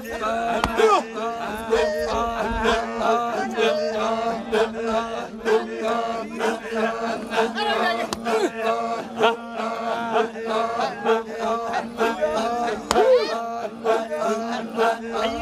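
A group of voices chanting over a steady held drone tone, with frequent sharp percussive hits.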